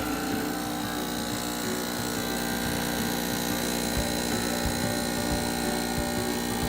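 Saeco Via Venezia espresso machine's vibration pump buzzing steadily as it pushes water through the coffee during a shot.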